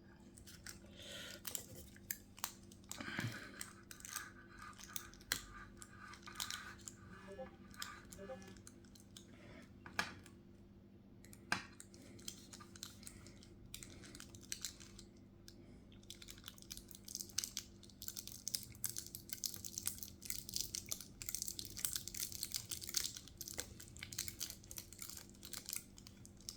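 Small clicks and crunchy scraping of a tool cutting between the glass and the LCD layers of an iPhone 7 screen. From about 16 seconds in it turns into a fast, continuous fine scratching. A low steady hum runs underneath.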